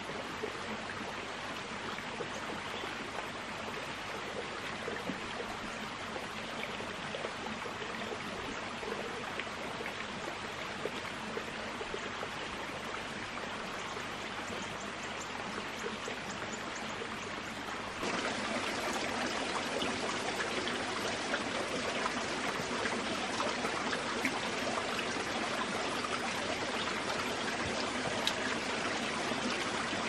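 Steady rush of flowing water, like a small stream running, turning a little louder about two-thirds of the way through.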